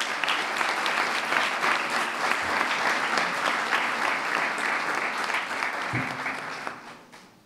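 Applause, many people clapping steadily, dying away near the end.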